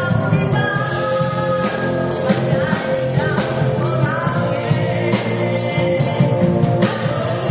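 Live band playing a rock-style song with drums and a lead singing voice.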